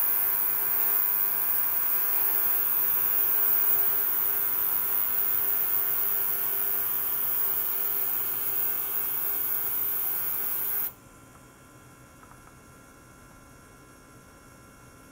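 Ultrasonic tank and liquid-circulation setup running with a steady hum of many fixed tones and a bright high hiss. About eleven seconds in it cuts off suddenly, leaving only a faint hum.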